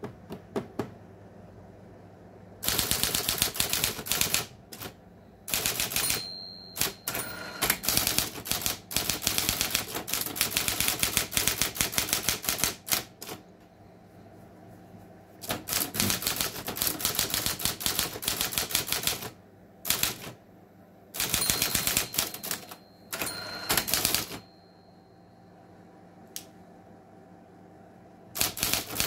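Erika Präsident electric typewriter typing in rapid bursts of keystrokes, several seconds at a time. Between the bursts its motor keeps up a steady hum.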